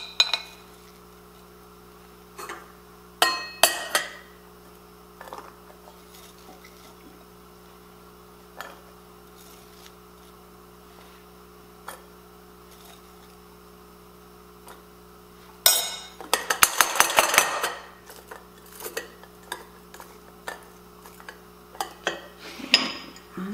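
A metal spoon and a stainless steel canning funnel clinking against glass canning jars as diced onion is spooned in, with scattered single clinks and a dense run of rapid clattering about two-thirds of the way through. A faint steady hum runs underneath.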